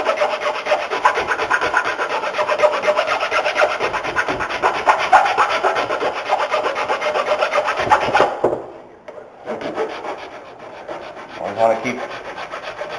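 Hand file rasping back and forth across the wooden tip of a bow in quick, steady strokes, cutting the string nock groove. The strokes stop about eight seconds in, then resume lighter.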